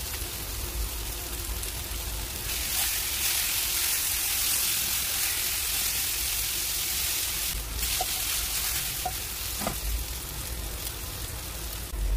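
Cubed potatoes sizzling as they fry in a nonstick frying pan, the sizzle growing louder about two and a half seconds in. A wooden spatula stirs them, with a few light knocks against the pan.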